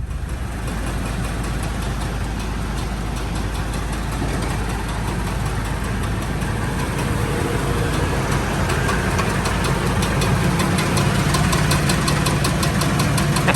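Toyota Tundra pickup's engine running steadily.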